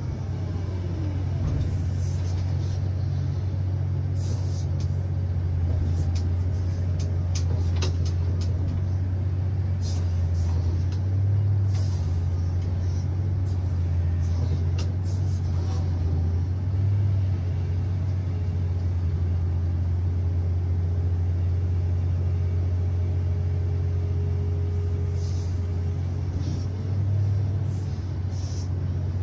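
Komatsu PC3000 mining excavator heard from inside its cab: a deep, steady drone of the engine and hydraulics while the machine digs, with scattered clicks and knocks.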